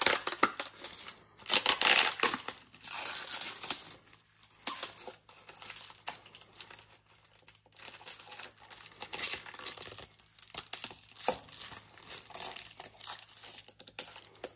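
Thin clear plastic protective film crinkling and tearing in irregular bursts as it is picked and peeled in pieces off the control knob of a new metal lathe. It is loudest about two seconds in.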